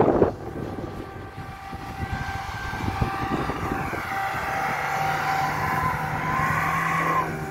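Lada Niva's engine running under load as it ploughs through deep snow, with a steady whine over a low rumble. The whine grows stronger as the car comes close, rises in pitch near the end, then breaks off suddenly.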